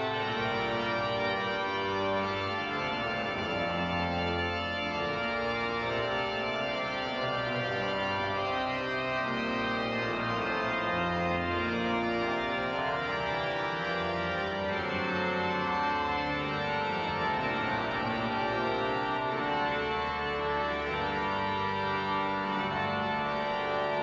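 Flentrop pipe organ (Benjamin N. Duke Memorial Organ, 1976) playing a French Baroque dialogue movement: full sustained chords over a moving bass line, at a steady level.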